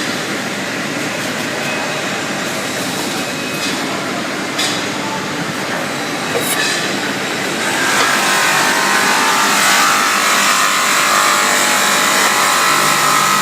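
Automatic rotary six-station inside sanding machine running, its abrasive heads grinding the inside of metal cookware. It makes a steady, dense machine noise with a couple of sharp knocks a few seconds in, and grows louder and hissier about eight seconds in.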